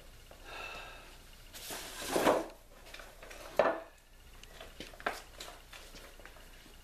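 Handling noise from things being moved about on a workbench: a short faint squeak, a rustling scrape about two seconds in, a sharp knock a little past halfway, then a few light clicks.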